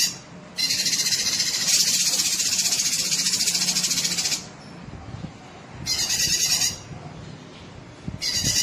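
Cucak kinoi singing in bursts of rapid, buzzy high trills: a long burst of nearly four seconds, then a short one about a second and a half later, and another starting near the end.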